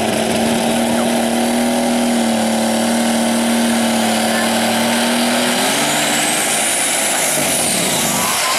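Modified pulling tractor's engine running loud at steady high revs under load, then revving higher about six seconds in, with a high rising whine over it. Near the end the engine note breaks up as the engine fails and smoke pours out.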